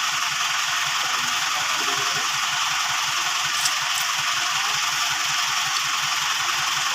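A motor running steadily, with a regular low beat about four or five times a second under a loud even hiss.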